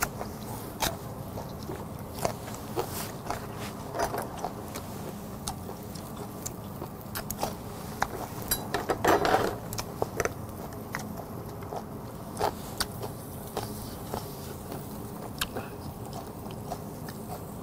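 Close-miked eating: a man biting into a raw green chili pepper and chewing, with many small crunches and clicks of utensils on a dish over a steady low hum. One louder, longer noisy burst comes about nine seconds in.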